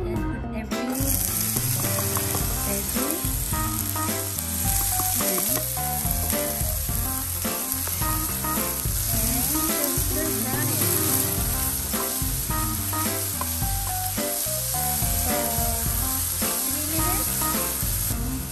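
Chopped onion, green onion and bell pepper hit hot oil in a frying pan about a second in, then sizzle steadily as they are stir-fried, with background music underneath.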